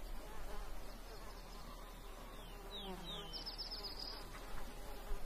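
Biting flies buzzing faintly and steadily, drawn to a mule deer carcass. A few short, high, falling chirps sound about halfway through.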